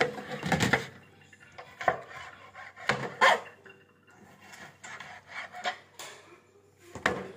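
Intermittent kitchen clatter: sharp knocks and clinks of a knife and utensils against a plastic cutting board as raw chicken breast is handled. The knocks come every second or so, with the loudest cluster about three seconds in.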